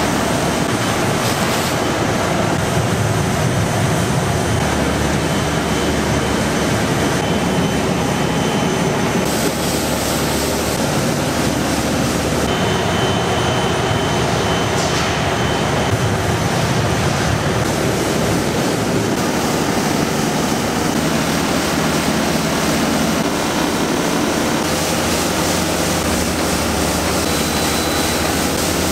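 Factory processing machinery running steadily, a dense, even mechanical rush with a faint high whine that comes and goes.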